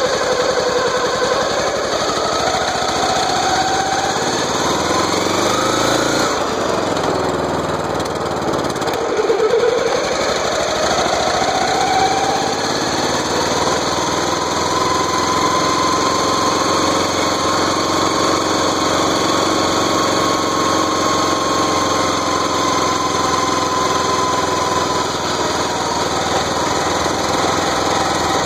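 Riding lawn mower engine running under way, its pitch rising and falling. The drive gears are misaligned, by the owner's account.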